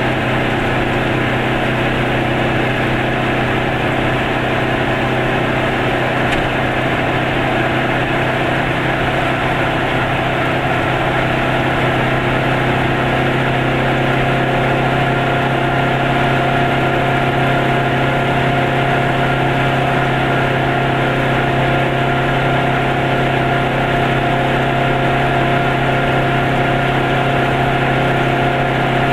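A car engine running at a steady cruising speed with tyre and road noise, heard from inside the cabin as a constant, unchanging drone.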